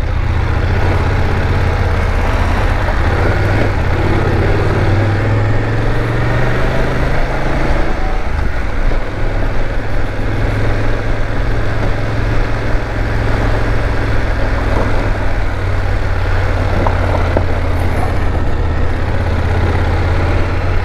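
BMW F850GS parallel-twin engine pulling at low road speed, with tyre and wind noise over it. Its note steps down about eight seconds in as the bike shifts from first into second gear.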